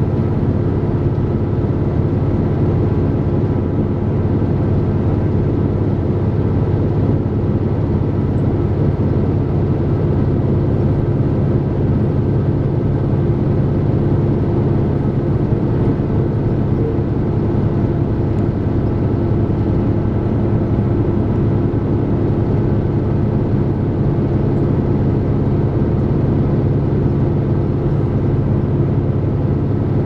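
Inside the passenger cabin of a KiHa 261 series diesel express train running at speed: a steady, even drone of the diesel engines and running gear, with a few constant hum tones.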